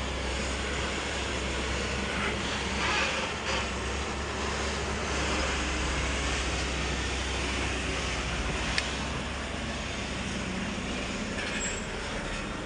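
Heavy diesel machinery running steadily with a low, even rumble, and one sharp click about nine seconds in.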